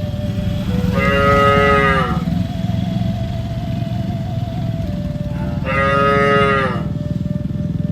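Cows mooing: two long calls a few seconds apart, each dipping in pitch as it ends, over a steady low rumble.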